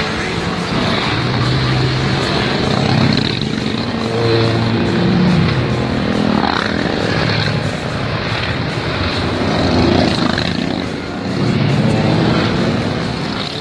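A line of motorcycles riding past one after another, the engine sound swelling and falling away several times as each group of bikes passes.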